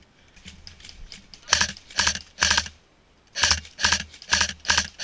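Airsoft AKS-74U rifle firing single shots, each a sharp mechanical crack: three about half a second apart, a pause, then five more in quicker succession.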